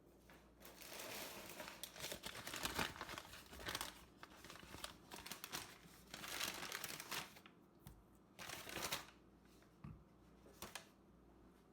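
Intermittent crinkling and rustling, as of something being handled, in irregular bursts of a second or so with short quiet gaps between them.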